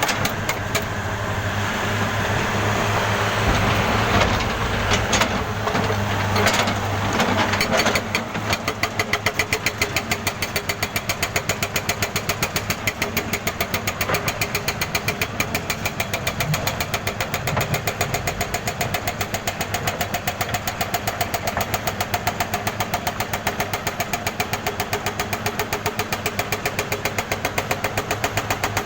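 Jackhammer hammering continuously with a rapid, even run of blows, which becomes steadier and more regular after about eight seconds.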